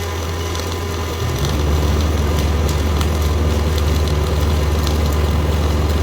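Steady low machine hum, like an engine running, that steps up louder and slightly higher about a second in, with faint scattered crackle above it.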